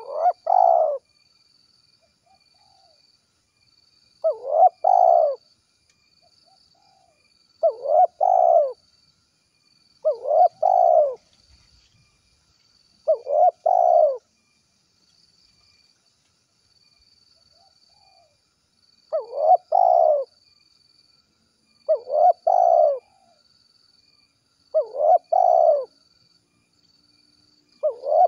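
Spotted dove cooing the 'kuk 1' song: a short phrase of about a second, repeated every two to four seconds, about nine times, with a pause of some five seconds midway.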